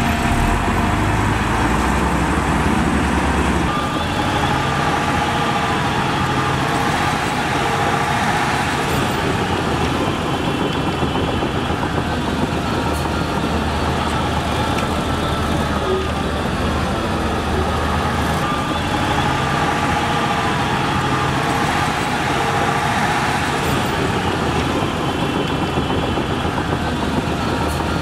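Shantui crawler bulldozer's diesel engine running steadily under load while pushing soil, its pitch rising and falling now and then.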